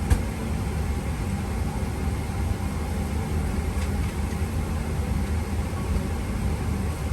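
Steady cabin noise inside a Boeing 777-200ER airliner: an even low rumble with a lighter hiss over it, and a single light click near the start.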